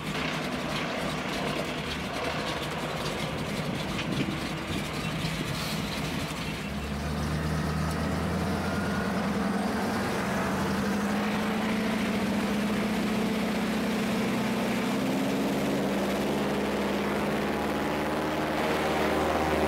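Cabin sound of a de Havilland Canada DHC-2 Beaver seaplane's Pratt & Whitney R-985 radial engine running on the water. About six seconds in the engine note grows fuller and then rises slowly in pitch as power builds.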